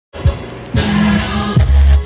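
Music with a beat played loud through an LG soundbar and its subwoofer: a kick hit soon after it starts, a brighter layer coming in under a second in, then another kick and a long, deep bass note near the end.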